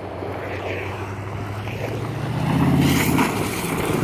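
Dodge Ram pickup's engine running as the truck drives over a dirt track, heard from outside. About two seconds in the engine pulls harder and gets louder, its pitch rising and then falling.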